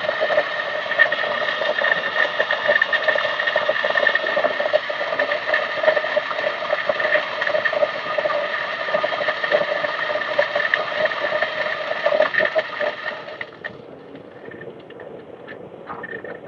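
DF64V grinder's 64 mm flat burrs grinding coffee beans at 600 RPM on a fine setting: a steady whirring grind with a high whine over it. The grinding drops away about 13 seconds in, and a few soft sounds follow as the bellows on the hopper is pumped to purge the grind chamber.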